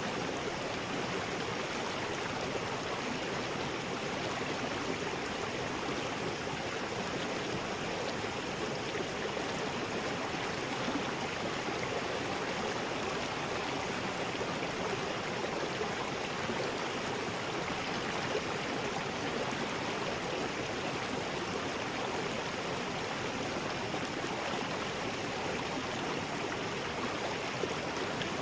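River rapids: water rushing steadily over rocks, an even, unbroken rush.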